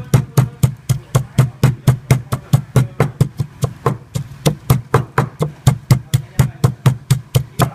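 Wooden pestle pounding garlic, red chillies and shallots in a wooden mortar: steady thuds, about four a second, crushing them to a paste.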